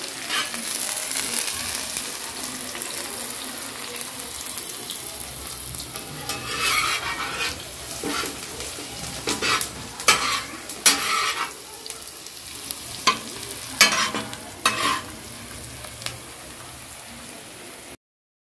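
Chopped onions sizzling in hot oil on a large flat tawa, with a steel spatula scraping and stirring them in several short strokes in the second half. The sound cuts out briefly near the end.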